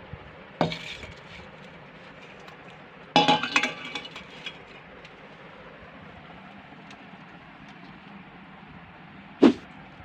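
Stainless steel dishes clinking against each other and the table as they are set down: one short clink, then a louder clatter of several ringing clinks about three seconds in, and a single sharp knock near the end.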